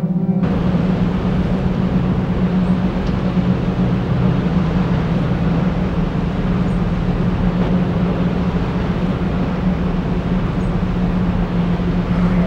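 A steady, loud low rumble with a constant deep hum running through it, a droning ambient soundscape; a layer of sustained musical tones cuts out right at the start, leaving only the rumble.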